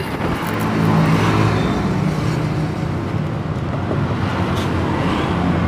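Yamaha Mio Z scooter engine running steadily with its CVT open, the drive belt and roller housing removed, and a low steady hum.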